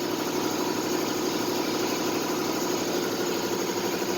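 Car engine idling steadily, an even hum with a fine regular pulse.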